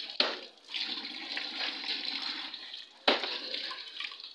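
Two cleaver chops into mutton on a chopping board, a lighter one at the start and a heavy, loud one about three seconds in, over a steady rushing noise.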